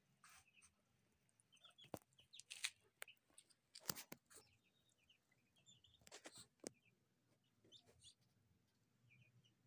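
Muscovy ducklings peeping faintly in short, scattered calls, with a few sharp clicks, the loudest about four seconds in.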